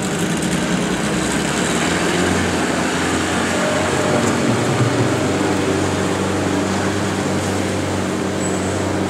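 Wooden boat's engine running steadily alongside the jetty, a loud low drone that holds an even pitch throughout.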